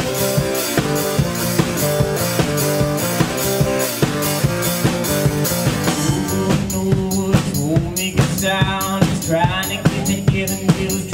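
Live instrumental playing of a strummed acoustic guitar and a drum kit, with steady kick and snare hits under the guitar chords. About six seconds in the guitar drops back and the drum hits stand out more.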